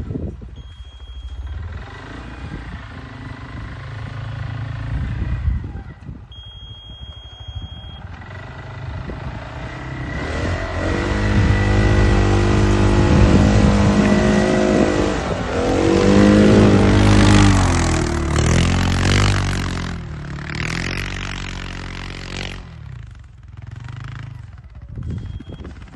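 CFMoto CForce 625 ATV's single-cylinder engine running low, then revved hard from about ten seconds in, its pitch climbing and dropping several times under throttle. It eases back toward idle after about twenty seconds.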